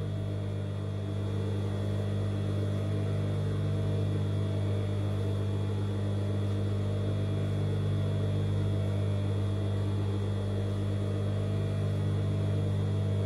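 Steady low electric motor hum with several fainter higher tones above it, unchanging throughout.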